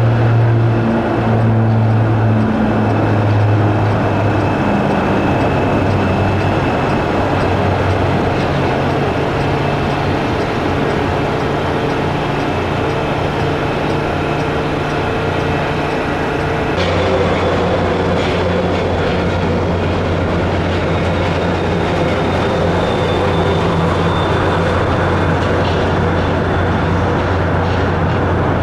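The turboprop engines of a Fairchild Metroliner run at take-off power with steady propeller tones. About 17 seconds in it gives way to a Boeing 737-800's jet engines at take-off thrust, a steady rumble with a high whine.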